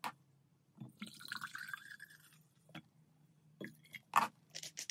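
Vinegar poured from a plastic bottle into a tall drinking glass: a liquid pour lasting about a second and a half with a slightly rising tone as the glass fills, followed by a few light clicks and knocks of the bottle and cap.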